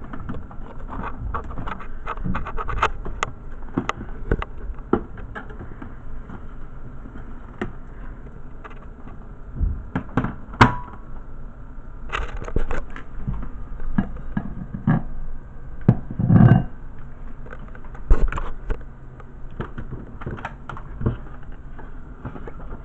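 Objects being handled: scattered knocks and clicks, with a heavier thump about sixteen seconds in, over a steady low hum.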